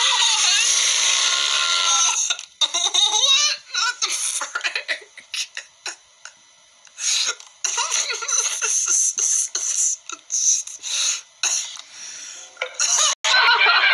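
A man laughing in short, broken bursts, after about two seconds of a steady sound with held tones.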